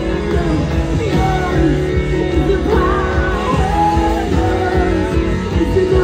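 Upbeat worship song: a lead voice singing over guitar and a full band, playing on without a break.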